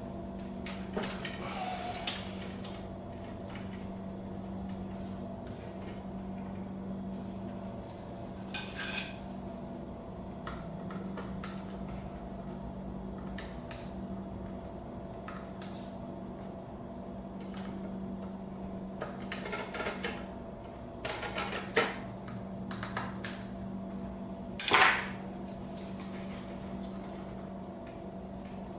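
Scattered clinks, clicks and short rattles of small metal parts and tools being handled while working inside an opened welder, over a steady low hum. The clatter grows busier in the second half, with the loudest knock near the end.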